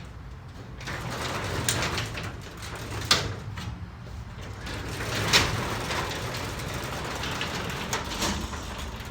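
Sectional garage door rolling along its tracks with a steady low rumble, with several sharp clunks along the way, as the door is moved after the opener's release cord has been used.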